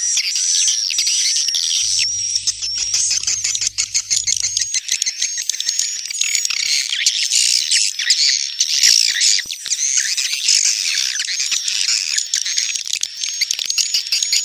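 Swiftlet calling sound (suara panggil walet): a dense, unbroken chorus of many swiftlets twittering and chirping over one another. This is the kind of recording played to lure swiftlets into a nesting house.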